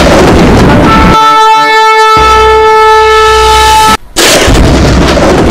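Intro sound effect: a loud crash of noise, then a long, steady horn blast like a trumpet or shofar about a second in. The blast cuts off suddenly at about four seconds and a second crash begins.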